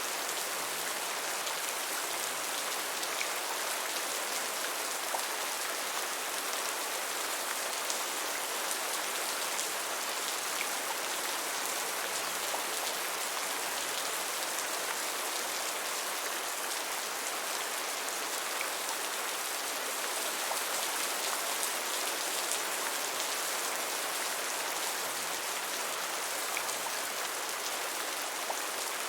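Steady gentle rain falling on a surface: an even hiss with scattered faint drop ticks.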